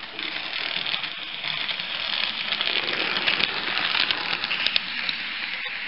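HO-scale model train running past on the track: a clattering run with quick clicks from the wheels and mechanism, growing louder as it comes close.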